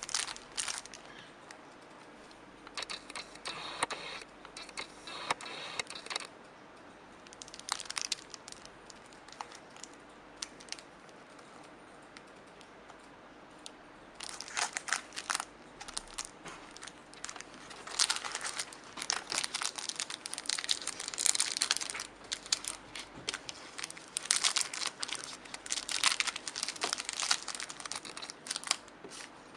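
Thin clear plastic packaging bag crinkling as fingers handle it, in irregular bouts of crackle that grow busier and louder in the second half.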